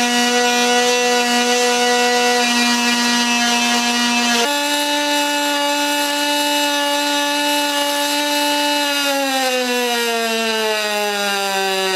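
Pulsed MIG welding arc on aluminum from an HTP Pro Pulse 200 welder: a steady, high-pitched buzz that steps up in pitch about four seconds in, then slowly falls in pitch over the last three seconds.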